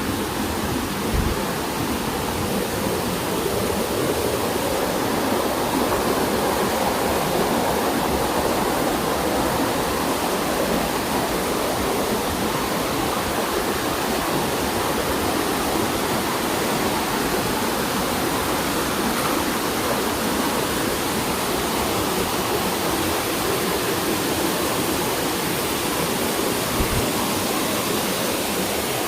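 Rushing water: a steady, even rush that holds at the same loudness throughout.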